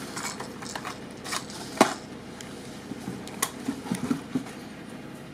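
Clear plastic lure packages clicking and clacking as they are handled and set down by a cardboard shipping box: a handful of sharp clicks, the loudest a little under two seconds in.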